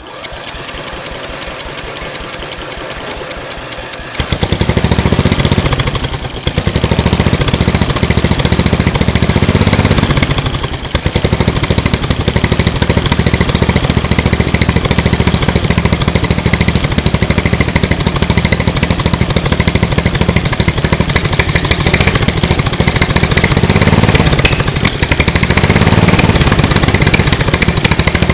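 Murray riding lawn mower engine cranked by its starter for about four seconds, then catching and running loud and steady, its speed dipping and picking up again a few times.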